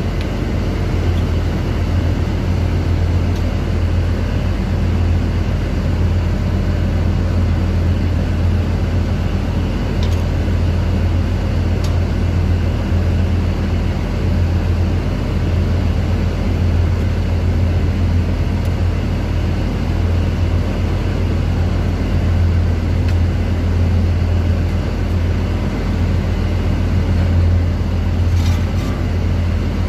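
Steady, loud, low-pitched machinery drone that does not change, with a few faint clicks.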